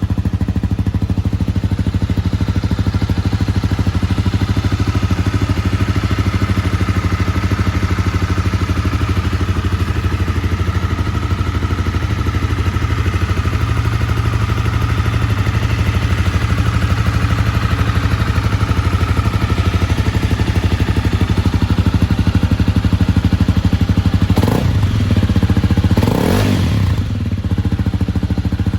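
Honda CB250R single-cylinder engine idling steadily through an aftermarket Beams silencer and Tadao header pipe. It is blipped twice near the end, rising and falling quickly each time, then settles back to idle.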